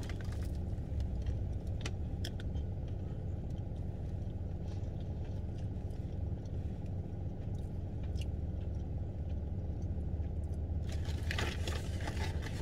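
Steady low hum inside a car cabin, with a few soft crunches of a breaded chicken nugget being bitten and chewed. Near the end comes a spell of crackly rustling.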